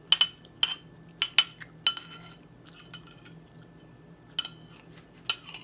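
Metal fork clinking against a ceramic plate while eating: a quick series of sharp clicks with short ringing. They come in a cluster over the first two seconds, go quiet for a couple of seconds, then pick up again near the end.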